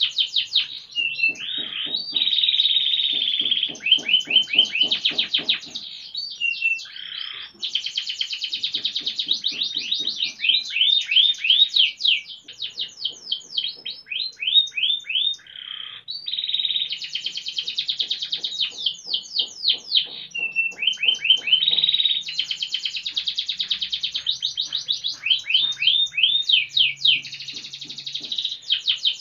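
Domestic canary singing nonstop: a long, unbroken song of fast rolling trills and rapid runs of repeated high notes that change speed every second or two.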